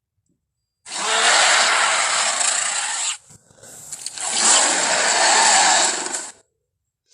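Two long, harsh Carnotaurus roars from a film sound-effect track, each about two seconds, the second starting about a second after the first ends.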